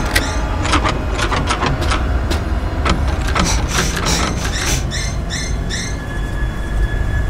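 Rapid, uneven knocking and banging on a glass-paned door for the first few seconds, over a low steady rumble. A few short high chirps follow, then a steady high tone comes in near the end.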